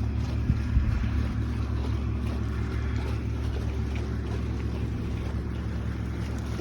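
A steady low motor hum, even in pitch and level. There are two light knocks close to the start.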